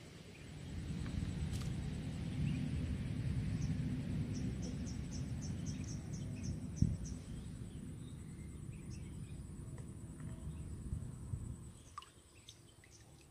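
Outdoor ambience: a low rumble that swells about a second in and dies away near the end, with a run of quick high chirps, about four a second, in the middle and a single sharp click just after. A faint steady high whine runs underneath.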